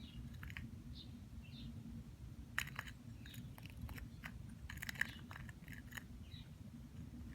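Cat eating dry food: irregular crisp crunches and clicks as it chews kibble, the sharpest about two and a half and five seconds in, over a low steady hum.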